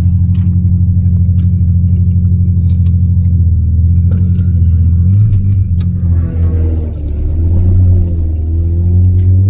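Mazda RX-7 FD3S's 13B twin-rotor rotary engine running at fairly steady, low revs, with a small shift in pitch about halfway and a gentle dip and rise near the end, typical of taking it slow on a first learning lap.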